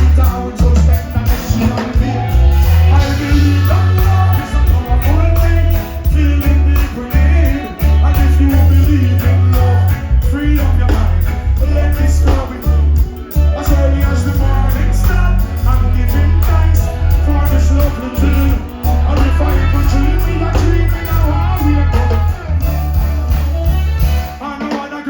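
Live reggae band playing, with a deep, heavy bassline under the full mix. The bass drops out briefly near the end.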